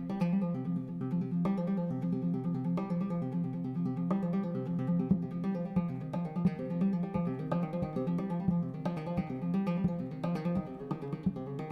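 Background music: acoustic guitar playing, with a strummed chord change about every second and a half.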